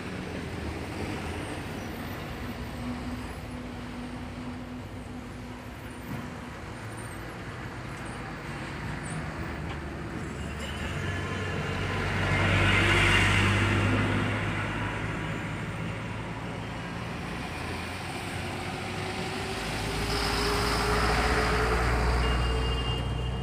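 Diesel engines of a bus, trucks and cars turning through a hairpin bend, with a steady rumble throughout. The sound swells as a vehicle passes close about halfway through and again near the end, and a whine rises in pitch during the second pass.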